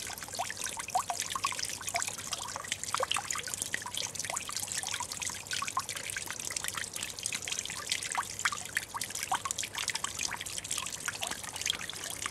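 Water trickling over stones in a small garden-pond cascade: a steady hiss dotted with many quick, high droplet plinks.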